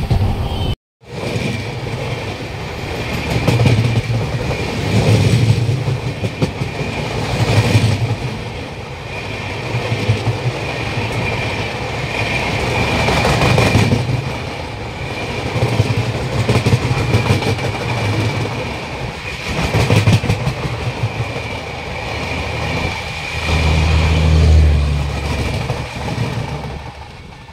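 Darjeeling Mail passenger train running on the line: a continuous rumble and rattle of coaches and wheels that swells and eases, with a steady thin high whine.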